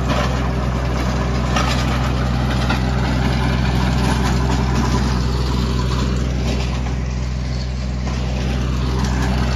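Compact tractor engine running steadily as the tractor pulls a rear-mounted rotary tiller through the soil.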